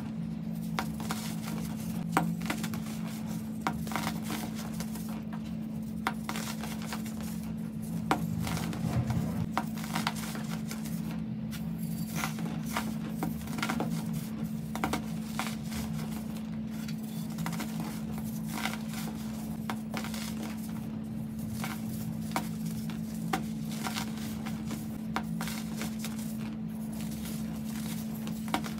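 Hands crushing and crumbling blocks of pressed baking soda: soft crunching with many small, irregular crunches as the chunks break and the powder pours through the fingers. A steady low hum runs underneath.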